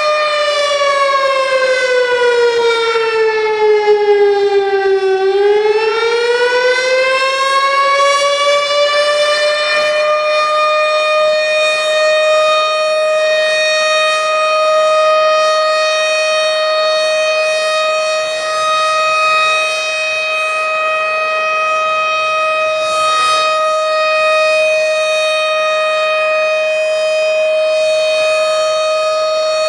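Tornado warning siren wailing: its pitch falls for about five seconds, climbs back over the next five, then holds a steady high tone.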